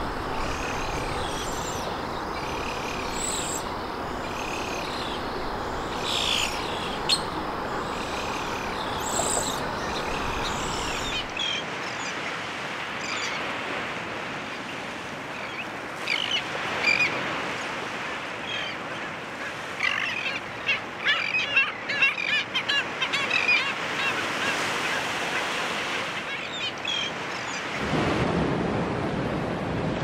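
Wild birds singing short phrases over and over above a steady hiss. After an abrupt change about a third of the way in, a shorebird colony of black skimmers and other shorebirds calls in quick clusters of short calls over wind noise. Near the end a steady rush of wind takes over.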